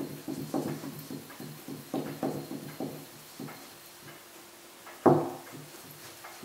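Feed screw of a lathe top slide being wound out of its nut by hand, with a run of light metallic clicks about three a second that thin out after a few seconds, then a single sharp knock about five seconds in.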